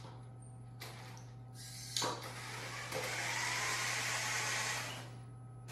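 FTC competition robot's electric drive motors whirring as it drives itself across the field carrying a wobble goal, with a sharp knock about two seconds in and a faint motor whine that rises in pitch. The whirring grows louder a second later and fades near the end.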